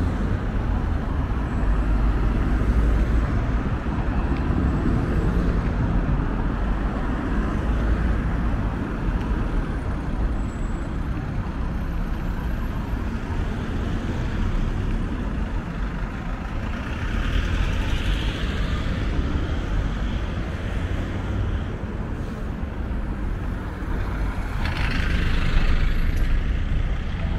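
Road traffic on a busy town street: cars driving past close by over a steady low rumble, with a short hiss near the end.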